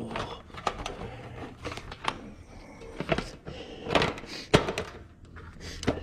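Irregular clicks and knocks of small parts being handled as a snow blower engine's throttle linkage is worked back through its hole, with a sharper knock about four and a half seconds in.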